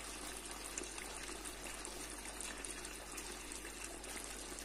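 Two eggs frying in oil and yogurt in a nonstick pan: a steady, soft sizzle with small scattered crackles.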